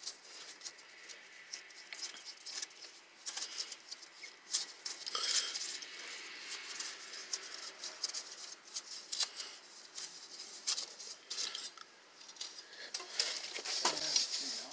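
Irregular small clicks and rubbing of a nitrile-gloved hand smearing a thin film of anti-seize around the inside of a metal axle housing.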